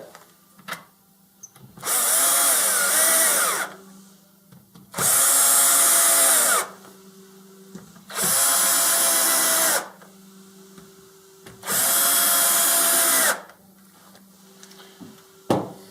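Electric drill-driver driving four M4 flathead screws home, one after another: four short runs of motor whine, each bending in pitch as the screw seats, with small clicks between them as the bit moves to the next screw.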